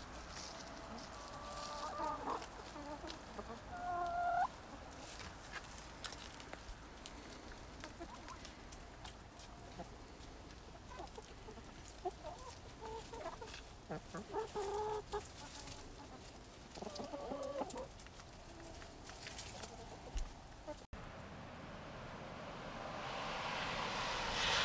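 Hens clucking in short, scattered calls with light ticks as they scratch and peck over a compost pile. About 21 seconds in the sound cuts to an even rush of outdoor noise that swells toward the end.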